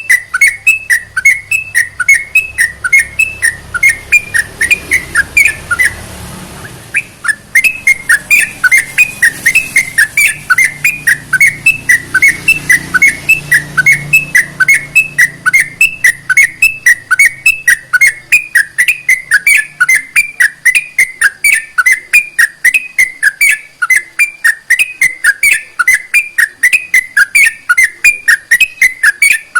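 Yellow-vented bulbul (trucukan) calling in a fast, even series of short, loud whistled notes, about three a second, with a brief pause about six seconds in.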